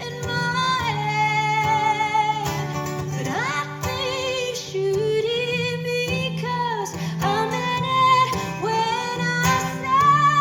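Live song: a woman singing long held and sliding notes over guitar accompaniment.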